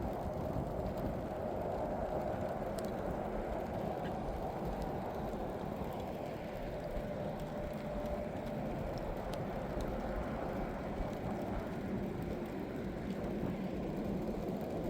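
Steady low rumble of a vehicle in motion, unbroken throughout, with a faint steady hum riding on it in the middle.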